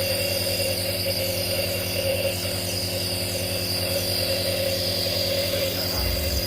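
Omron NE-C28 piston compressor nebulizer running with a steady, even hum while it turns the medicine into mist. A low rumble joins in near the end.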